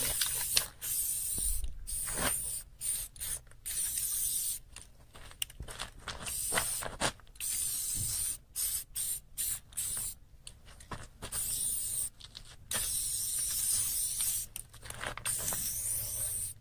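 Aerosol spray paint can hissing in a long string of short bursts, some lasting a second or two, with brief pauses between them.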